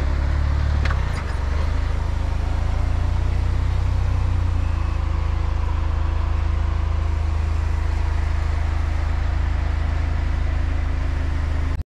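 Jeep Wrangler Rubicon running steadily, a constant low engine drone, with a single light click about a second in. The sound cuts off suddenly at the end.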